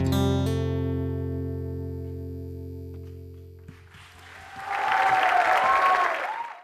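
Acoustic guitar's final chord struck and left to ring, fading away over about three and a half seconds. The audience then breaks into applause and cheering, which swells and fades out near the end.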